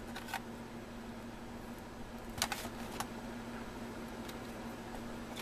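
A few light clicks and taps of a screwdriver and small screws against the plastic base of a Dell Inspiron 1420 laptop as its access-panel screws are removed, with a cluster of sharper clicks about two and a half seconds in. A steady low hum runs underneath.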